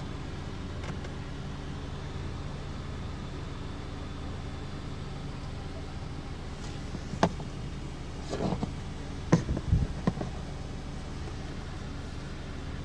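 Vehicle engine idling with a steady low hum, with a few short knocks and clicks between about seven and ten seconds in.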